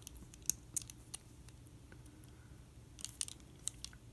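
Scattered light metallic clicks and taps as tweezers are pushed into a handcuff to shim its ratchet lock, with a small cluster of clicks about three seconds in.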